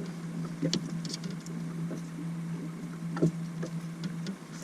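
A steady low hum that cuts off shortly before the end, with scattered sharp clicks and knocks on top.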